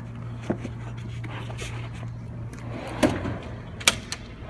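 Steel drawers of a Snap-on KRL1163 roll cab being shut and pulled open, a few clunks and clicks with the loudest about three and four seconds in, over a steady low hum.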